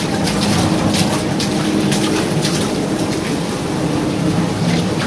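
Rough sea against a ship: a rush of waves, wind and spray that flares several times, over the steady low hum of the ship's engine.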